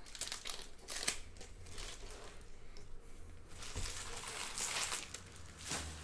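Foil wrappers of Panini Prizm retail trading-card packs crinkling as they are handled and opened by hand. The crinkling comes in irregular bursts, with a quieter pause about halfway through.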